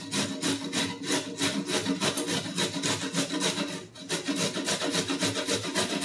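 Carrots being grated by hand on a stainless steel box grater: rhythmic scraping strokes, about five a second, with a brief pause about four seconds in.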